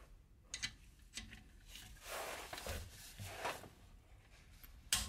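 Faint clicks and short rasps of a socket wrench working the rear differential's filler plug, with a sharper click near the end.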